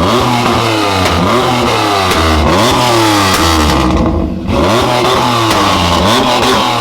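Chevrolet Camaro engine revved in quick repeated throttle blips, the pitch sweeping up and falling back several times a second, with sharp exhaust pops mixed in. The revving eases briefly a little past the middle, then picks up again.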